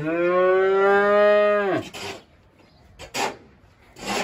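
A young Simmental heifer moos once: one long call that rises in pitch at the start, holds steady for nearly two seconds and breaks off. Two short noisy sounds follow near the end.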